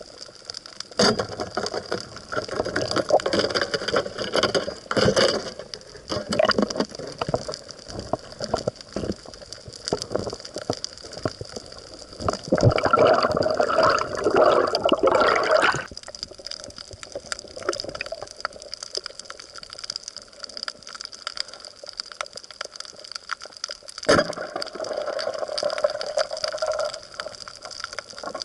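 Water gushing and bubbling close to the microphone in uneven surges, loudest for a few seconds just past the middle, with one sharp click near the end.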